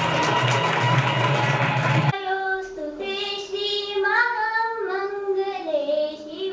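Loud recorded dance music that cuts off abruptly about two seconds in. A woman then sings alone into a handheld microphone, unaccompanied, in long held notes that slide between pitches.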